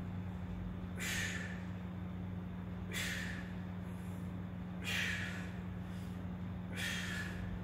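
A man's sharp, forceful breaths out, one about every two seconds, four in all, in time with the reps of dumbbell side bends. Under them runs a steady low hum.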